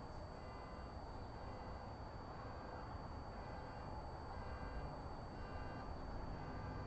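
Steady background noise: a low rumble and hiss with a constant thin high whine, and faint short tones now and then.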